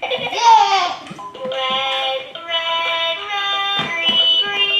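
A battery-operated toy car's electronic sound chip playing a tinny synthesized melody, one note about every half second, as the toy is switched on. A loud swooping, voice-like sound comes first, in the first second.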